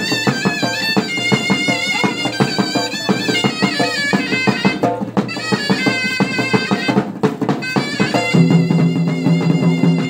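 Chhau dance music: a reedy shehnai playing a wavering, ornamented melody over fast drumming. About eight seconds in a low steady drone comes in underneath.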